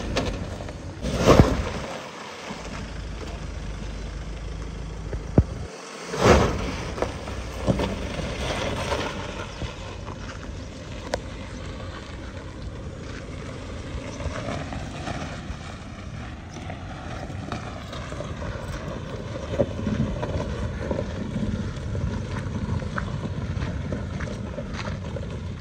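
Mahindra Thar running while driven off-road in four-wheel drive, a steady engine and road rumble. A few loud knocks come in the first seven seconds, the strongest about a second and six seconds in.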